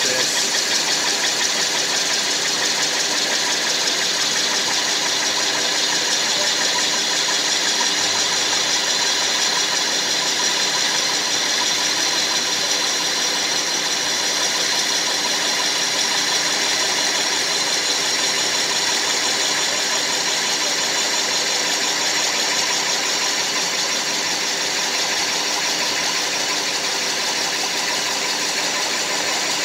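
Metal lathe turning a PTFE (Teflon) cylinder, the cutting tool making a steady scraping noise along the plastic over the hum of the spinning chuck and spindle.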